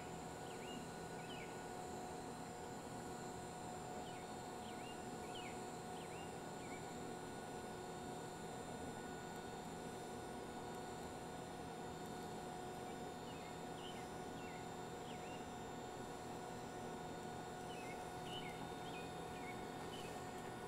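Steady low hiss and hum of a DC TIG arc on stainless steel pipe during a cap pass, with faint short chirps in small clusters now and then.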